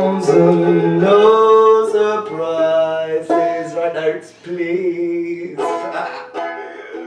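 A male voice sings held notes over plucked strings, closing a solo acoustic song; the music fades out near the end.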